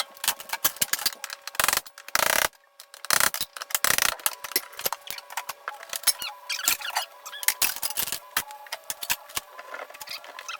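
Hand demolition of a wall: a rapid, irregular run of sharp knocks and clicks from tools and debris, with two short scraping rasps about two seconds in.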